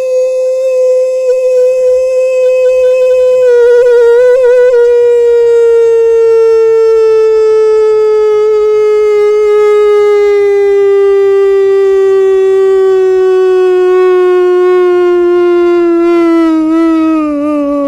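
One long, unbroken held note that starts steady and sinks slowly and evenly in pitch throughout, with a brief wavering a few seconds in.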